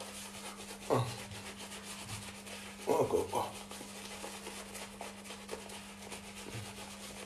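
Badger-hair shaving brush scrubbing lather onto the face: a continuous soft rubbing and scratching of wet bristles over skin and stubble, made of many quick strokes.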